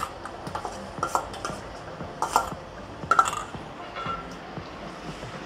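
A metal spoon clinking and scraping against a steel bowl and a metal cooking pot as ginger-garlic paste is scraped into the pot: several sharp clinks, a few with a short ring.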